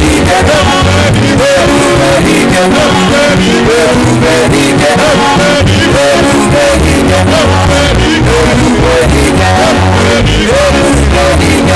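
Loud music: a voice singing over bass and a steady beat.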